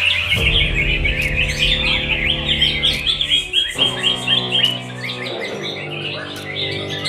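Several competition songbirds singing at once, a dense, rapid chatter of chirps and trills. Background music with held notes plays underneath.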